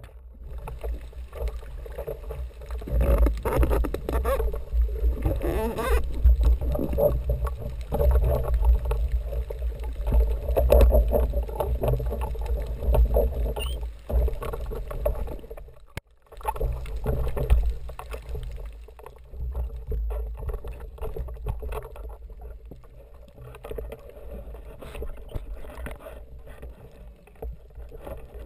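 Muffled underwater rumble and swishing of water around a GoPro camera housing as a spearfisher swims. It drops out suddenly for a moment about halfway through and is quieter after that.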